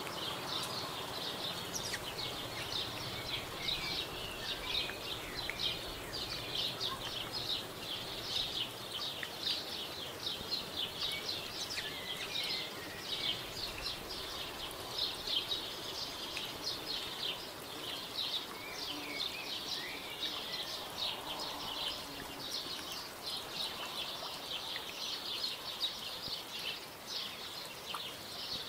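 A dense, unbroken chorus of small, high-pitched chirps from wild animals, with a few short whistled phrases standing out now and then.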